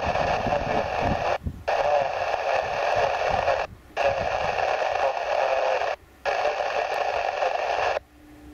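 Air-band radio receiver hiss: open-channel static through a radio's narrow audio band, dropping out briefly about every two seconds and cutting off near the end.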